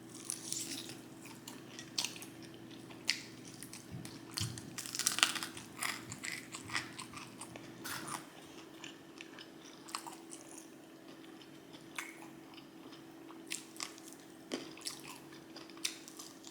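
Mouth chewing and biting into food, with irregular wet clicks and crunches that come thickest about five to seven seconds in. A faint steady hum runs underneath.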